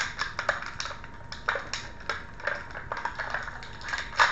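Clear plastic packaging crinkling and crackling in the hands as an action figure is unwrapped, in quick irregular clicks and snaps, the loudest near the end.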